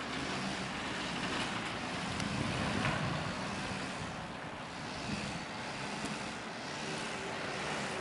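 Steady rushing noise of wind on the microphone, with a faint low hum of distant traffic under it.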